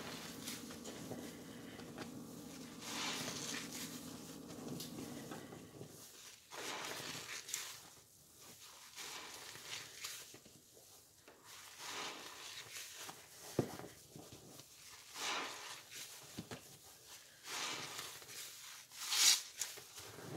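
Wet, sudsy kitchen sponges being squeezed by hand over and over, each squeeze a wet rush of about a second with short pauses between. A low steady hum stops about six seconds in.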